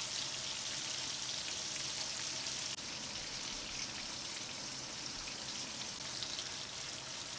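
Sliced red onion and green chilies sizzling steadily in hot mustard oil in a frying pan.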